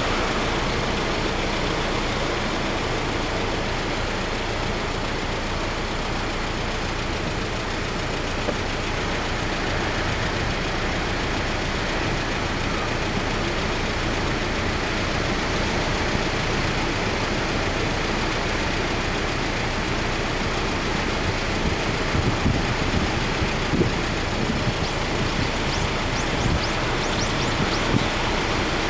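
Typhoon wind and surf making a steady, loud rush of noise, with gusts buffeting the microphone in low rumbling bumps over the last several seconds.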